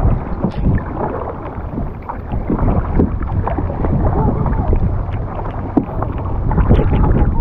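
Plastic sit-on-top kayak being paddled: the paddle blades dip and splash in the water, with wind rumbling on the microphone.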